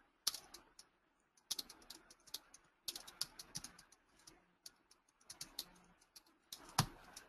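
Typing on a computer keyboard: irregular runs of quick key clicks, with one louder keystroke near the end.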